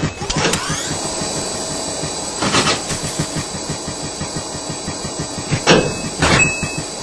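Cartoon sound effects of a treadmill running fast: a steady high motor whine under rapid pounding footfalls on the belt, with a few louder hits about two and a half seconds in and twice near the end.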